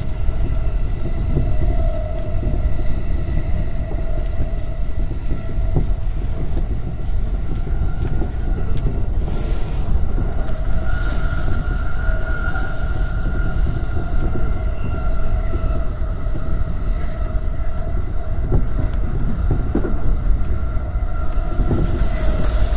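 E231-series electric commuter train running at speed, heard from inside its intermediate driving cab: a steady low rumble of wheels on rail with a constant whine over it, and a brief hiss about ten seconds in.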